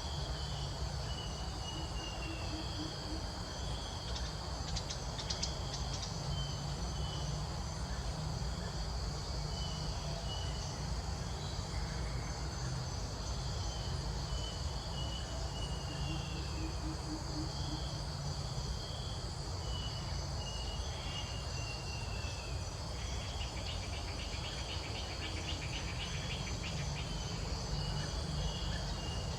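Steady high-pitched insect chorus, with short falling chirps every few seconds and a rapid buzzing trill about three-quarters of the way through, over a low rumble.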